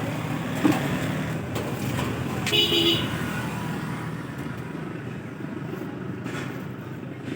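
A vehicle horn toots once, briefly, about two and a half seconds in, over a steady background of road traffic.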